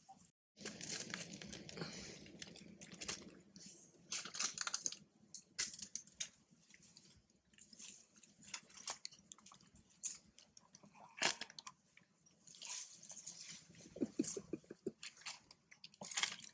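Scattered soft rustles, clicks and smacks from long-tailed macaques, a mother and her newborn, moving close to the microphone. A quick run of about ten soft clicks comes near the end.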